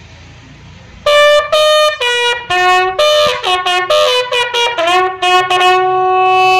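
Bugle call sounded as a salute for final police honours: a quick run of separate notes on a few pitches starting about a second in, settling into a long held note near the end.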